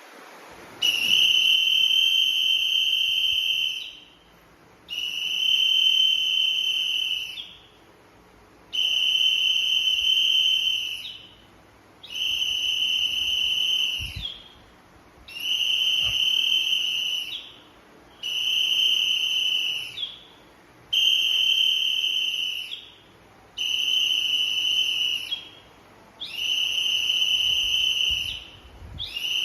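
Whistle blown in a regular series of long blasts, about ten in all, each held at a steady pitch for two to three seconds with about a second's pause between them, giving the count for a calisthenics drill.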